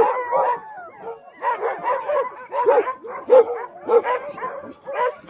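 Team of sled dogs hitched to a sled barking and yelping in a chorus, many short barks overlapping several times a second: the eager noise of a dog team waiting to run.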